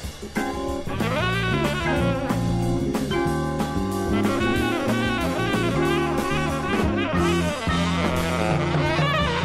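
Jazz band music: a drum kit keeping a busy beat under bending horn lines and a bass line, dense and steady throughout.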